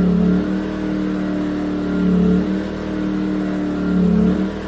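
Yamaha EF2000iS inverter generator's single-cylinder four-stroke engine running on propane through a Tri-Fuel demand regulator. Its speed rises and falls about every two seconds, hunting while the load block mixture screw is being tuned.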